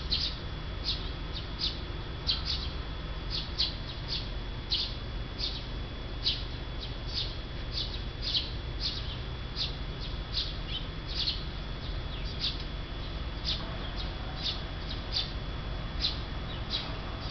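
A small bird chirping over and over, short high calls about two a second, over a low steady rumble.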